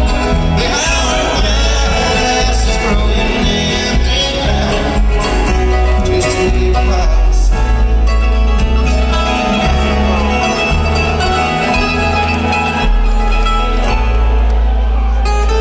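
Live bluegrass band playing: upright bass, acoustic guitar and banjo with other string instruments, recorded from the audience.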